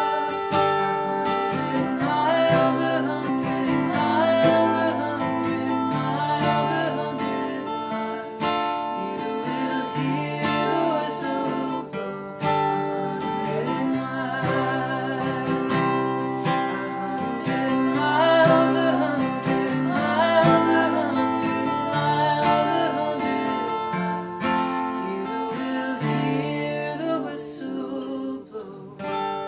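Acoustic guitar music, plucked and strummed, with a voice carrying the melody.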